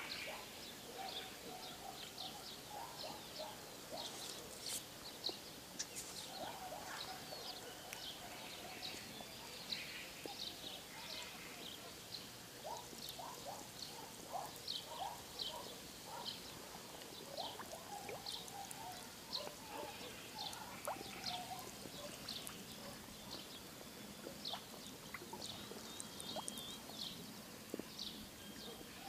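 Frogs and birds calling from a reed bed, a dense chorus of short repeated chirps, some high-pitched and some lower.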